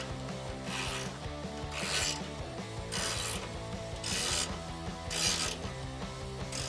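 Socket ratchet clicking in about six short strokes, roughly one a second, as a running-board bracket bolt is tightened.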